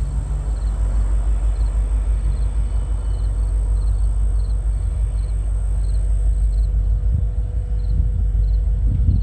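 A steady low rumble, with a cricket chirping about twice a second over it.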